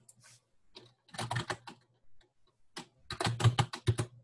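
Typing on a computer keyboard: a short run of key clicks about a second in, then a longer, quicker run near the end.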